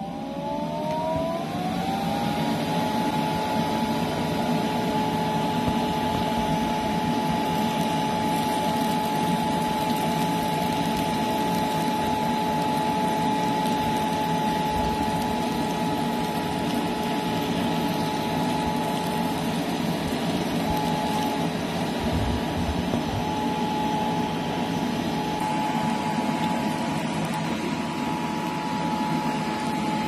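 Homemade bottle vacuum cleaner driven by a DC brushless computer cooling fan. The fan's whine rises in pitch as it spins up over about the first two seconds, then holds steady over a rush of air as the nozzle sucks up wheat grains.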